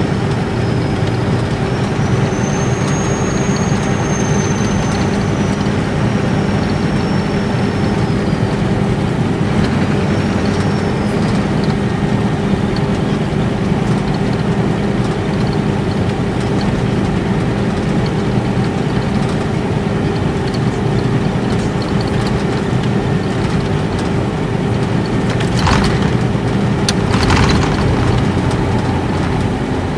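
Nissan Diesel Space Arrow RA coach's inline-six turbo diesel running at highway speed, heard from inside the cabin, with a high turbocharger whistle that rises and falls over the first several seconds and comes back briefly around ten seconds in. A few sharp knocks near the end.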